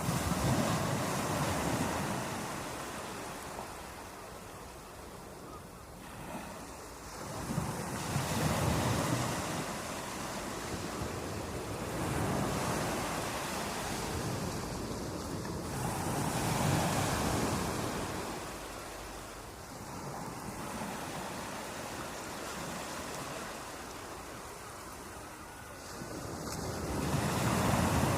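Sea waves breaking and washing on a shore, swelling and falling back in a slow rhythm of about one surge every four seconds, with some wind on the microphone.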